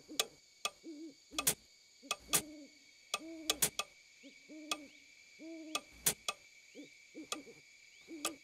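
An owl hooting over and over in short, arching hoots, mixed with the sharp ticks of a clock.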